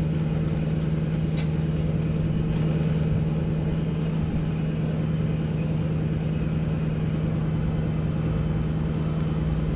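Engine of the remote-controlled lifting machine running steadily with a constant droning hum while it hoists a load.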